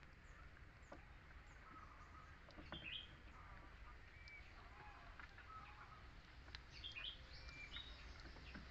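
Faint bird chirps, a few short calls about three seconds in and more near the end, over a low steady outdoor hum.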